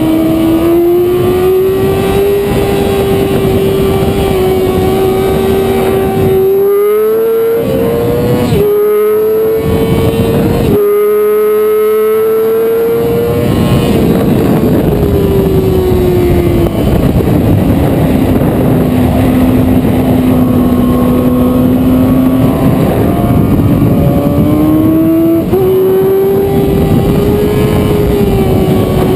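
Sport-bike engine run hard on a racetrack, heard from on board over steady wind rush. The engine note climbs, with three quick gear changes about a quarter to a third of the way in, then falls as the bike slows, runs lower for several seconds and rises again near the end.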